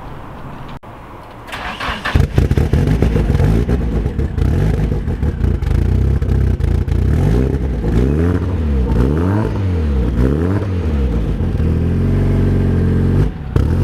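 A Nissan 240SX (S13) engine starting about two seconds in and then running loud, revved up and down several times in the middle before settling back to idle.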